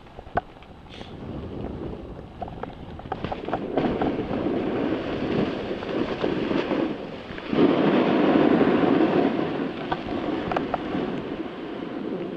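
Skis running through deep fresh powder snow, a rushing hiss mixed with wind buffeting the microphone, building up about two seconds in and loudest a little past the middle, with a few small knocks.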